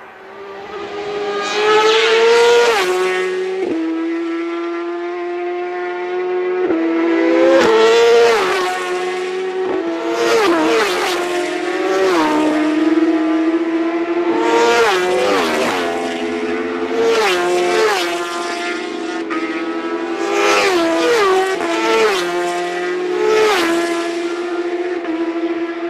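Superbike racing motorcycles passing flat out one after another on a public-road circuit. Each engine note climbs and then drops sharply as the bike goes by, about seven or eight times in quick succession.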